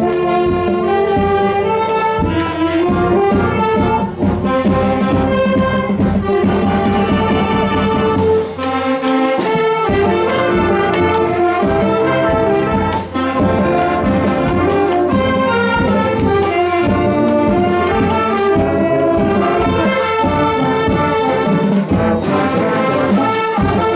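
School wind band playing, saxophones and brass, with a regular beat throughout.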